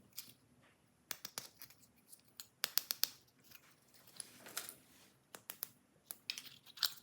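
Clusters of sharp clicks, snips and scrapes of hands working at small plastic toy parts, with a longer rustling scrape about four and a half seconds in.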